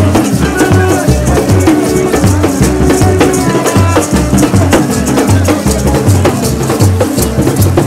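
Haitian rara street band: large rope-tensioned bass drums and metal drums beaten with sticks, with a shaker rattling, playing a steady repeating beat. Some held tones run over the drumming.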